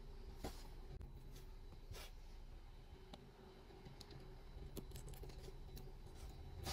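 Faint handling sounds: a few soft clicks and light rubs as fingers turn and grip a small plastic L.O.L. Surprise doll, over a low steady hum.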